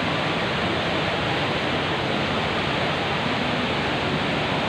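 The HSBC Rain Vortex, a tall indoor waterfall, rushing steadily: an unbroken wash of falling water.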